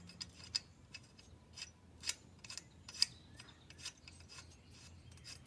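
Irregular sharp metal clicks and light scraping from a wrench snugging down the exhaust nuts on a motorized bike's engine, a few clicks a second.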